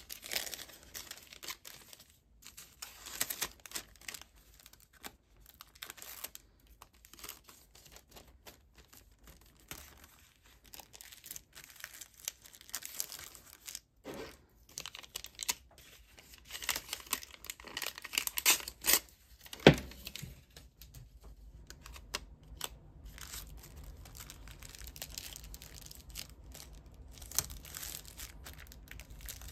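Clear plastic cellophane sleeve crinkling and tearing as printed paper cards are slid in and the bag is sealed and stickered, in irregular crackly bursts. A single sharp click about two-thirds of the way through is the loudest sound.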